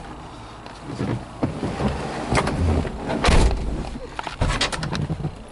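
Irregular clicks, rustling and knocks of movement inside a parked car's cabin. The loudest is a deep thump about three seconds in.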